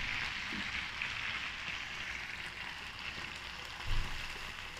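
Sauced onions and capsicum sizzling steadily in a hot frying pan as a little water is poured in. A brief low thump near the end.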